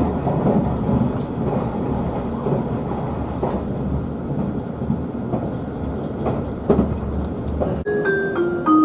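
Cabin running noise of a limited express train in motion: a steady rumble with a few sharp clicks from the wheels over the track. Near the end it cuts to background music of stepped mallet-instrument notes.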